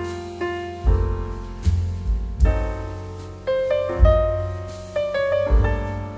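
Background piano music: chords over deep bass notes, a new chord struck about every second, each ringing and fading before the next.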